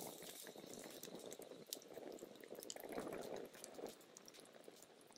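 Campfire of birch and split logs burning in a fire pit: a faint, low rush of flames with scattered small crackles and pops, swelling a little past the middle.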